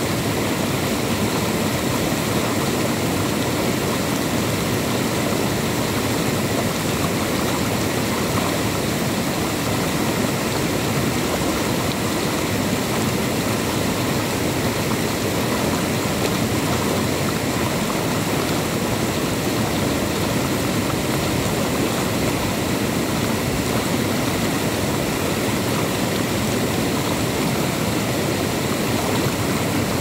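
Shallow stream water rushing over a rock ledge in a small rapid: a steady rush of whitewater.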